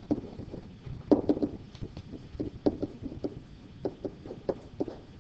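Pen tapping and knocking on an interactive whiteboard while writing: a run of short, irregular light taps, several a second with gaps.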